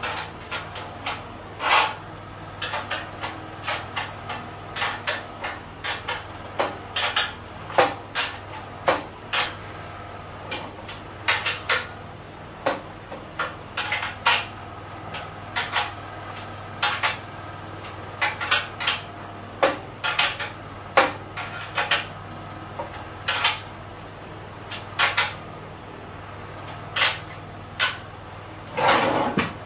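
Steel bolts, nuts and washers clinking against the metal frame of an industrial sewing machine stand as they are fitted by hand. The sharp metallic clicks are irregular, several a second at times, with a heavier knock near the end.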